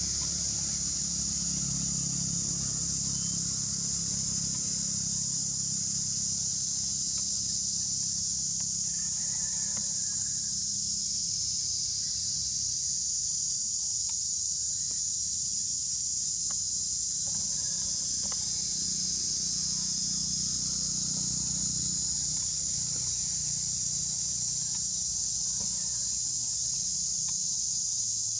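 Steady, high-pitched drone of an insect chorus, unbroken throughout, over a low steady rumble.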